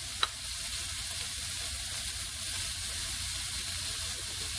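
Diced onion, carrot and celery sizzling in oil in a frying pan: a steady hiss, with one sharp click right at the start.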